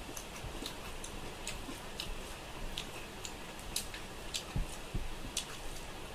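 Someone eating rice and fish curry by hand: irregular wet clicks of chewing and lip smacks, with a couple of soft knocks of fingers working rice on a steel plate.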